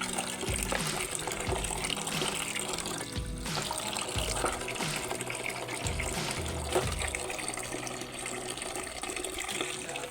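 Water running steadily from a tap, with a few soft knocks, with music faint underneath.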